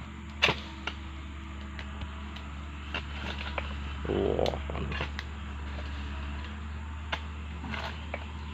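Metal blade of a long oil-palm harvesting pole knocking and scraping at the fruit bunches and frond bases in the crown. There is a sharp knock about half a second in, scattered clicks after it, and a short rustling crunch about four seconds in, over a steady low rumble.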